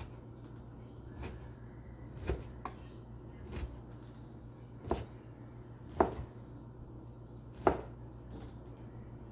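Kitchen knife striking a cutting board while dicing ham: about seven separate chops at an uneven pace, the two loudest in the second half.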